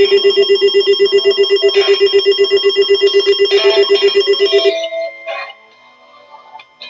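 Electronic weather-alert alarm sounding for a new severe weather warning: a loud, fast-pulsing beep of about ten pulses a second that stops about two-thirds of the way through.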